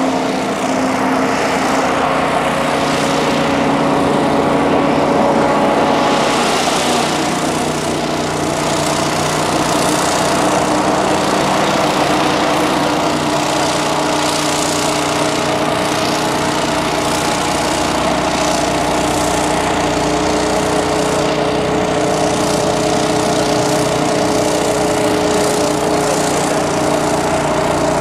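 Rescue hovercraft running steadily over the mudflats: a loud, even drone of its engine and air propellers, the note shifting slightly about six seconds in.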